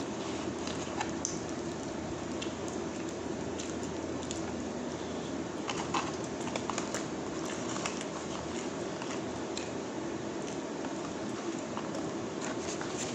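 Steady hum of a noisy air conditioner, with scattered small clicks and crinkles as a plastic ketchup sachet and a paper takeaway bag are handled.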